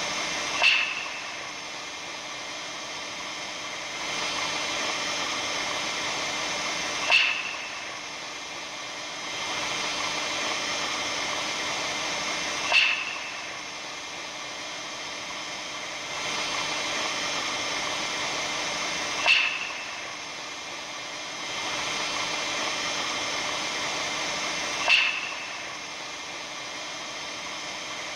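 Steady hiss with a sharp crackle about every six seconds, five in all. The hiss drops back after each crackle and swells again a few seconds later. It is presented as the sound of the northern lights.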